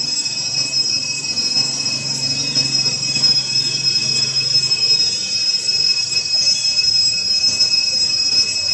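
Steady high-pitched insect drone, a continuous whine at a few fixed pitches that does not change.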